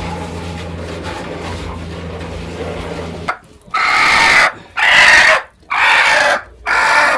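A steady low hum, then four loud bird calls, each under a second long, in quick succession over the last three seconds or so.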